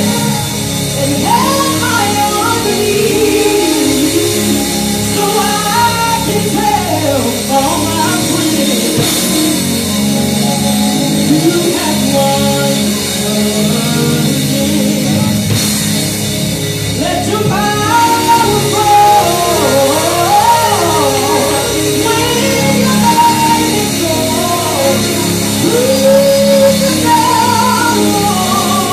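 Live gospel music: a lead voice singing a sliding, held melody over a backing band with drums.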